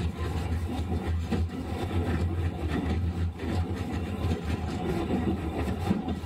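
Sapporo City Tram M100-class streetcar heard from inside the car: a steady low hum with rumbling noise from the tram under way.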